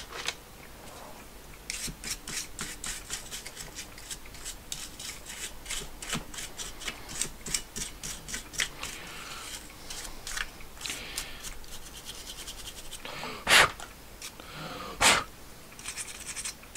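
A small brush scrubbing the circuit board of a card reader to clean off dirt, in quick scratchy strokes several times a second. The strokes start about two seconds in and stop after about ten seconds, followed by two louder knocks near the end.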